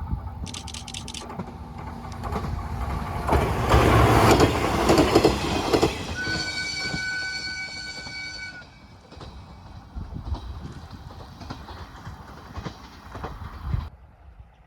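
JR East 719 series electric train passing close by, its wheels clattering over the rail joints. About six seconds in, a steady horn blast lasting a bit over two seconds sounds after the loudest rush of the passing cars. The clatter then fades and cuts off suddenly near the end.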